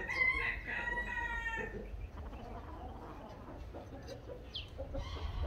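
Rooster crowing once, a single long call that ends about two seconds in.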